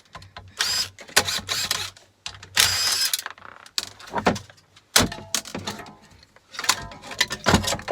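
Cordless drill-driver run in short whining bursts while unscrewing scrap electrical fittings, with sharp knocks and rattles of loose metal parts in between.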